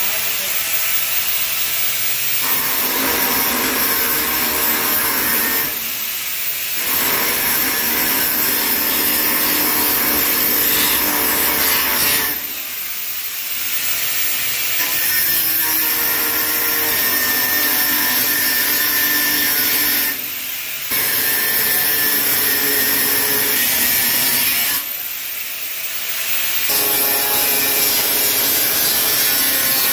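Electric angle grinder cutting into a steel pipe, a loud steady grinding, easing off briefly four times as the disc is eased back or repositioned.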